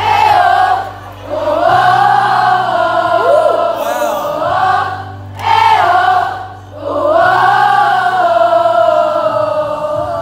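Many voices singing a slow melody together in long held phrases over a steady backing track, like a concert crowd singing along. The singing breaks off briefly between phrases three times.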